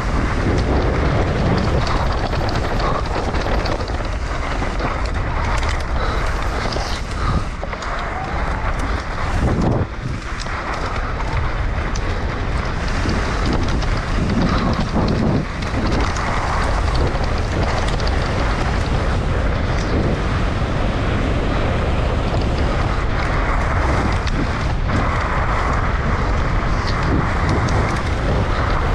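Mountain bike descending a dirt trail at speed: steady wind rushing over the microphone and tyres rolling on dirt, with frequent knocks and clatter from the bike over bumps.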